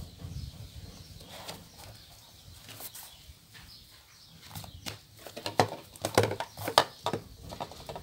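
Hands handling a CD glued to a sheet of EVA foam on a tabletop: soft rustles at first, then scattered short taps and clicks in the second half as the sheet and disc are pressed and moved.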